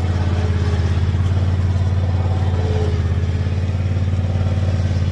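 Motor vehicle engine running steadily at low speed, a low, even drone.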